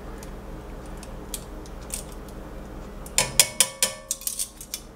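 Metal tongs clinking against a cast-iron Dutch oven while stirring chicken in liquid. There are a few faint taps at first, then a quick, irregular run of ringing metallic clinks about three seconds in.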